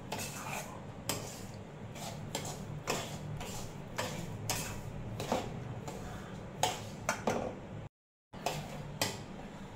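Metal spoon scraping and knocking against a steel kadai while stirring semolina being roasted on a low flame, in irregular strokes about one or two a second. A low steady hum lies under it, and the sound cuts out completely for a split second near the end.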